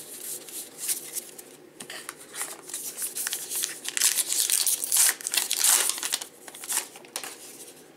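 Trading-card pack wrapper crinkling and tearing as it is ripped open and pulled off the stack of cards, in quick scratchy bursts that are loudest about five to six seconds in. Cards rustle as they are handled before the tear.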